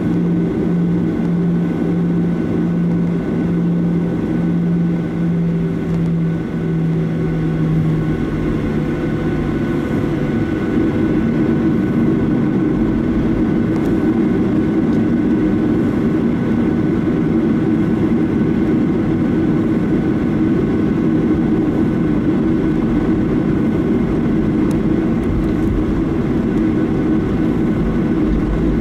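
Cabin noise of a Boeing 737-800 with its CFM56 jet engines running, heard from inside the passenger cabin. A low pulsing hum stops about ten seconds in, and the engine noise then grows louder and stays steady.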